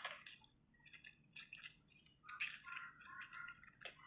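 Faint, wet chewing and mouth sounds, a string of short smacks and clicks from eating a mouthful of chicken and rice.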